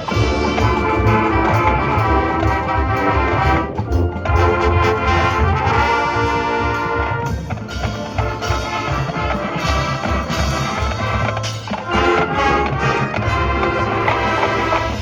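Marching band playing a loud full brass passage, trombones and trumpets holding chords over drums, with brief breaks about four and twelve seconds in.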